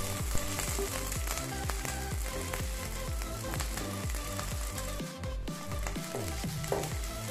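Onion pieces, fried garlic and green chilli sizzling in hot oil in a wok while being stirred with a wooden spatula, under background music with a steady beat.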